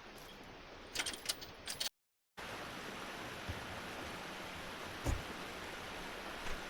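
River water rushing as a steady even hiss. A few sharp clicks come just before a half-second of dead silence about two seconds in, and a single dull thump sounds about five seconds in.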